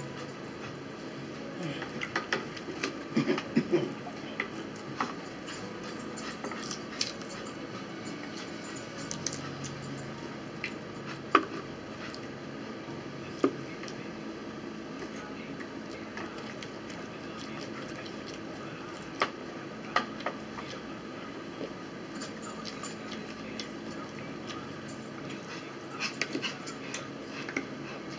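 Eating sounds: forks clicking and scraping on plastic plates and a plastic bowl, with scattered sharp utensil clicks.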